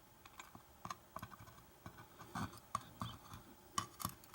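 Faint, irregular small metal clicks and scrapes from tweezers picking the pins out of a disassembled American 1100 padlock.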